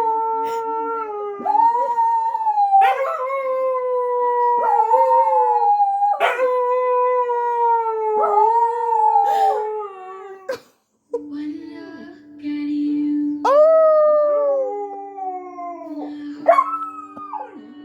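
Two dogs howling together in long, drawn-out howls that hold and then slide down in pitch, overlapping one another. About eleven seconds in the sound briefly drops out, and after that a steady low tone runs under further howls.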